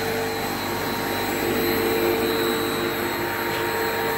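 22 kW two-pole three-phase induction motor running unloaded at about full speed on a variable frequency drive: a steady whir with several steady hum tones, running as it should.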